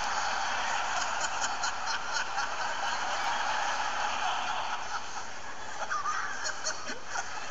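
Studio audience laughing.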